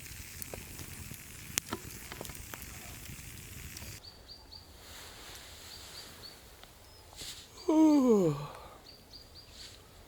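A campfire crackling, with scattered sharp pops. About four seconds in, it gives way to an outdoor morning background with short, high bird chirps. Near the end, one loud call falls steeply in pitch over under a second.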